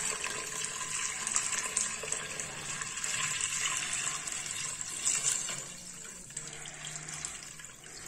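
Water being poured into the inner pot of an electric pressure cooker on top of beans: a steady splashing stream that weakens near the end as the pot is filled.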